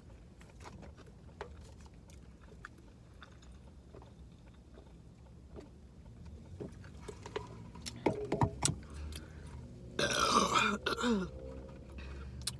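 Soft mouth clicks of chewing, then a loud burp about ten seconds in, lasting about a second.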